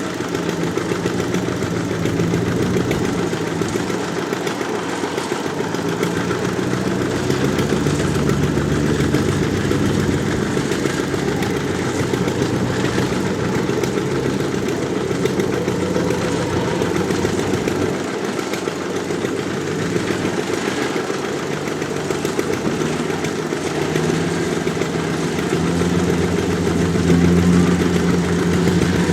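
Kubota rice combine harvester's diesel engine running steadily as it works, its pitch shifting slightly now and then.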